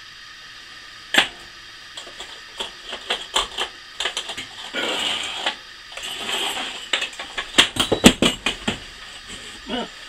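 Glass and metal parts of a Pyrex glass percolator clinking, tapping and scraping as they are taken apart and set down on a glass tabletop. Near the end comes a quick clatter of sharp knocks as a piece falls to the floor.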